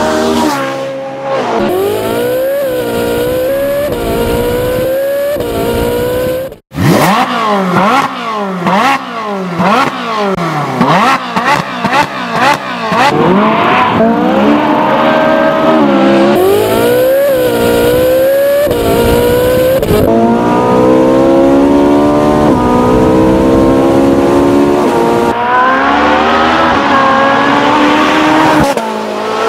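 Ferrari 458 Spider's naturally aspirated 4.5-litre V8 driven hard: revs climbing and dropping through the gears, with quick rises and falls of downshifts and throttle blips in the middle, then long pulls to high revs. A brief dropout about a quarter of the way in.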